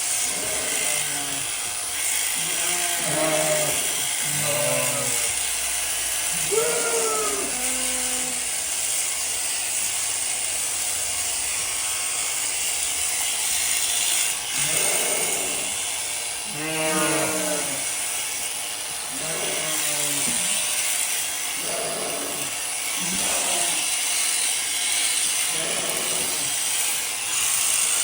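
Electric sheep shears running with a steady high hiss, while sheep bleat again and again over it.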